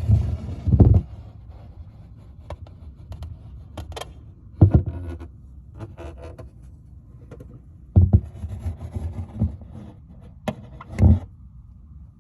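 Hands working the factory amplifier and its wiring in a car's rear cargo compartment: irregular knocks, clicks and scraping of plastic and metal, with heavier thumps near the start, about four and a half seconds in, around eight seconds and near the end.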